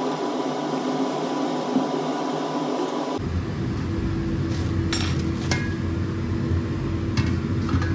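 Steady mechanical hum and hiss that changes abruptly about three seconds in to a deeper hum with a steady low tone, with a few light clicks after that.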